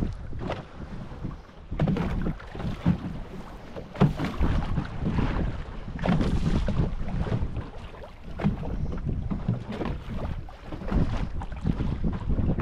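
Wind buffeting the microphone over waves slapping against a small fishing boat's hull, in uneven gusts with scattered knocks.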